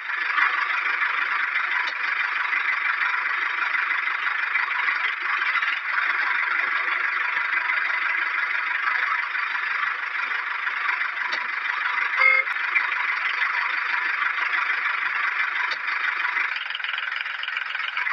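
A small motor whirring steadily, with a brief ringing tone about twelve seconds in.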